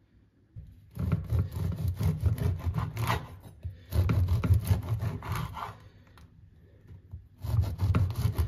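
A kitchen knife sawing through a crusty seeded wholegrain loaf on a wooden cutting board. There are three bouts of back-and-forth strokes, each about two seconds long with short pauses between, one for each slice.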